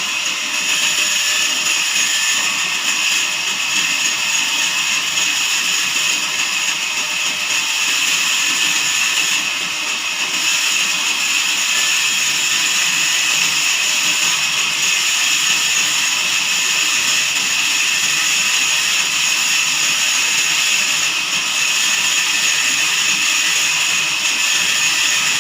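Band sawmill running steadily with a high-pitched whine, dipping slightly about ten seconds in.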